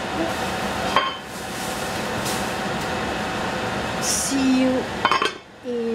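A heavy enamelled cast-iron lid clanks down onto a Dutch oven about five seconds in, after a single clink about a second in. A steady kitchen hum runs underneath.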